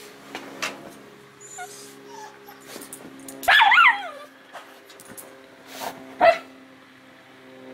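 A dog whining and yipping in excitement: one long wavering whine about three and a half seconds in, a short sharp yip near the end, and a few fainter whimpers around them. A steady low hum runs underneath.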